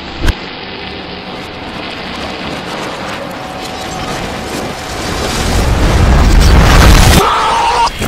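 Action-animation sound effects played backwards: a sharp hit near the start over a steady low rumble, then a deep explosion-like rumble that swells louder over a couple of seconds and cuts off abruptly, the shape of a reversed blast.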